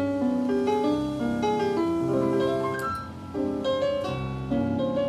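Piano music from an FM radio broadcast playing through a Centrex by Pioneer KH-767 stereo receiver: a steady run of single notes and chords.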